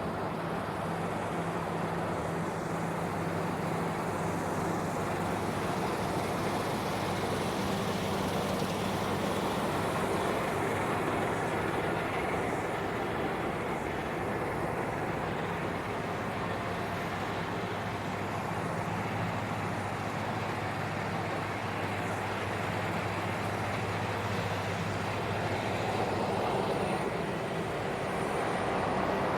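Claas Lexion 770 combine harvester running steadily while harvesting wheat: an even engine hum under a wide mechanical rush that barely changes.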